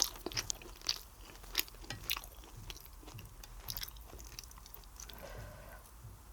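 A person chewing and biting food close to the microphone, with several sharp crunches and mouth clicks in the first two seconds, then softer chewing.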